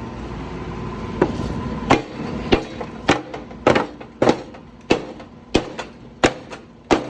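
Hammer blows on a pickup truck's bumper, knocking out a dent: sharp single strikes at an even pace, about one every two-thirds of a second, starting about a second in. A low steady hum underneath stops about two seconds in.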